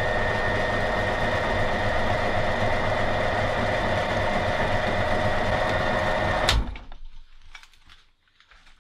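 Motor-driven meat grinder running steadily with a whine as it grinds jelly candy, then switched off about six and a half seconds in with a click, its sound falling away over the next second.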